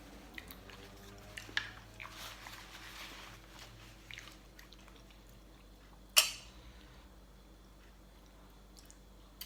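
Close-up eating sounds: chewing and sucking on tender stewed chicken feet with pounded papaya salad, with small wet mouth clicks and smacks. One sharp, much louder click about six seconds in.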